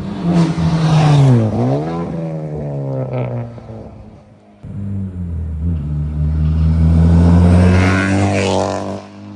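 Honda Civic Type R FK8's turbocharged four-cylinder engine running through a Max Racing track exhaust, revving. Its pitch dips and climbs again about a second and a half in, the sound fades around four seconds, then it comes back in suddenly and holds loud until it drops off near the end.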